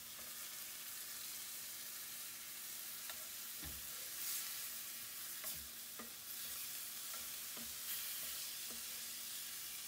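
Riced cauliflower sizzling in a hot cast-iron skillet as pork juices cook off, stirred with a wooden spoon that knocks against the pan now and then.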